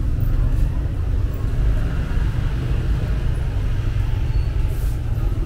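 Steady city street traffic: vehicle engines and tyres passing in a continuous low rumble.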